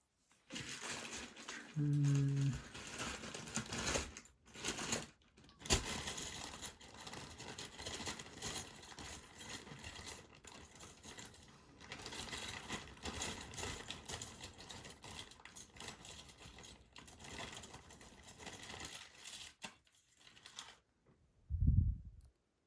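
Metal picks scraping and clicking against the internals of an ASSA Desmo slider lock as tools are jammed in and worked: a continuous scratching with sharp clicks scattered through it, stopping shortly before the end. A brief low hum comes about two seconds in.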